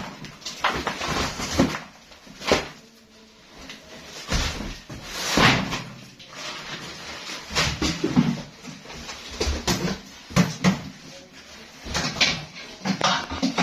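Cardboard boxes being shifted and rummaged through, with irregular knocks, scrapes and rustles.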